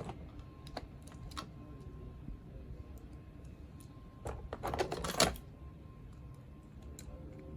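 Plastic parts of a Buzz Lightyear toy clicking and rattling as they are handled and pulled apart, with a dense burst of clattering about four to five seconds in.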